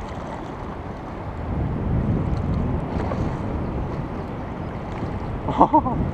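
River rapids rushing steadily, with wind buffeting the microphone, swelling about a second and a half in. A brief wavering pitched sound comes near the end.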